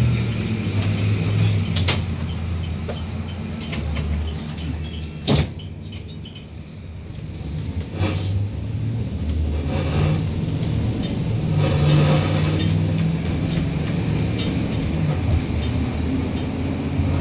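Inside a 2017 GMC-chassis Arboc transit bus: the engine runs while the bus stands at a stop, with a sharp clack about five seconds in. From about eight seconds in the engine pulls harder and gets louder as the bus moves off.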